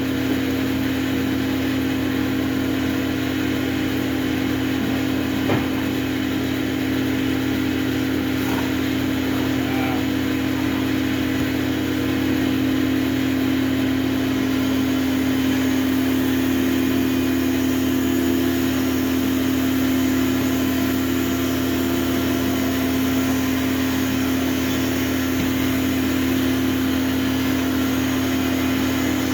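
A machine's motor running steadily with a constant hum, with a single click about five and a half seconds in.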